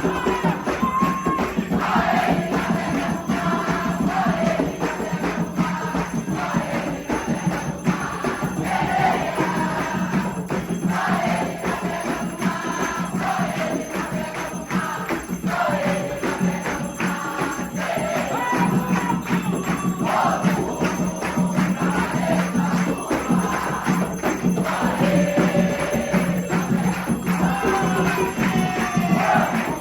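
A group of voices singing a repeating chant over fast, steady percussion with jingling bells.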